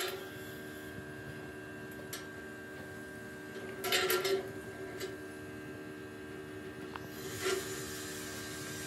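A machine running with a steady hum, broken three times by short bursts of scraping or rattling: at the start, about four seconds in, and again near the end.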